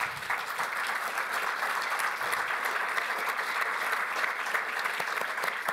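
An audience applauding, a dense steady patter of many hands clapping.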